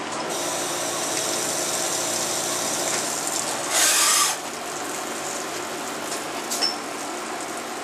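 Jenn Wei JMY-series CNC turning-milling center running with a steady mechanical whir, a brief louder hiss about four seconds in, and a few light clicks a couple of seconds later.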